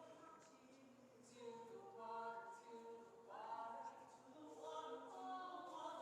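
A group of voices singing without accompaniment, in slow phrases of long held notes.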